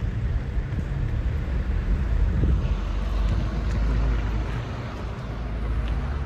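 Wind buffeting a handheld microphone outdoors: a loud, unsteady low rumble that swells and eases, with a faint outdoor hiss above it.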